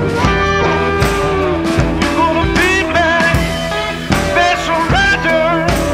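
Rock music with electric guitar and singing over a steady drum beat.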